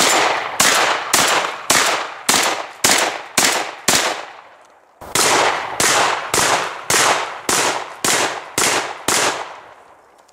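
Franchi SPAS-12 12-gauge shotgun firing double-aught buckshot in rapid succession, about two shots a second. About eight shots, then a pause of about a second, then about nine more.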